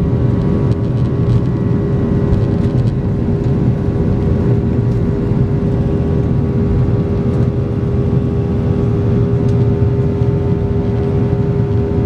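Cabin noise of a Boeing 737-800: its CFM56-7B turbofan engines running steadily, heard from inside the cabin as a low rumble with a constant whine held at one pitch.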